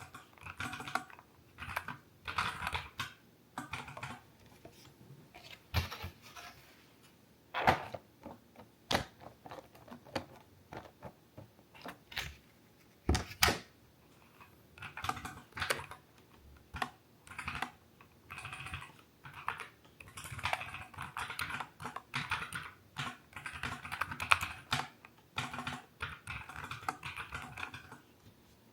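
NuPhy Air60 V2 low-profile mechanical keyboard with Aloe switches being typed on: runs of quick key clicks in bursts with short pauses, and a few louder single key strikes.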